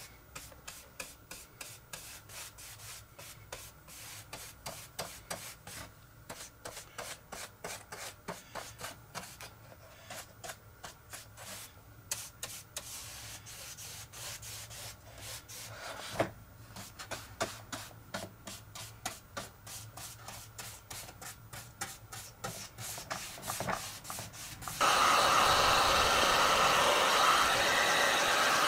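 A flat paintbrush scrubbing back and forth over a model aircraft wing, brushing on emulsion paint in quick, uneven scratchy strokes. Near the end a heat gun switches on with a sudden, much louder steady blowing noise.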